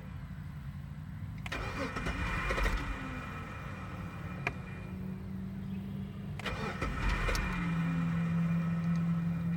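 Jeep engine being cranked on the starter twice, each try lasting about a second and a half, while it struggles to start. A steady low hum sounds between the tries and carries on after the second.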